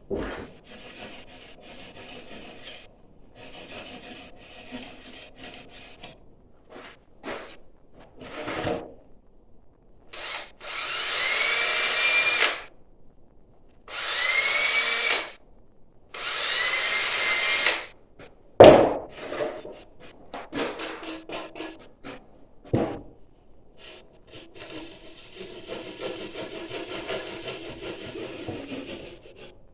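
Hand-sawing soft refractory insulation board in rhythmic strokes. Partway through come three bursts of about two seconds each from a small electric motor whose pitch rises as it spins up, then a sharp knock and clicks, then more steady scraping strokes near the end.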